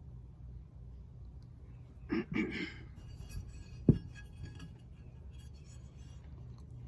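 Small hard objects handled on a work surface during painting: one sharp clink just before the middle is the loudest sound, with faint light rattling after it, over a steady low hum. A brief murmur comes about two seconds in.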